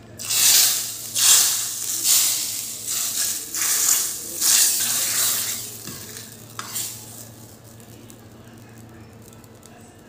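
A steel ladle stirring thick dal in a stainless-steel kadai: a run of about eight quick strokes that stops about seven seconds in.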